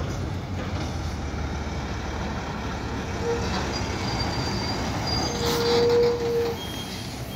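A loaded semi-truck with a flatbed of lumber passes close by, its diesel engine and tyres making a steady rumble. A short steady tone sounds about three seconds in, and a longer one around five and a half seconds in, where the sound is loudest.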